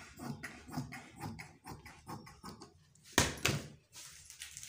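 Large tailor's scissors snipping through cotton cloth in short cuts, with the fabric rustling, then a sharp clack a little over three seconds in as the steel scissors are put down on the table.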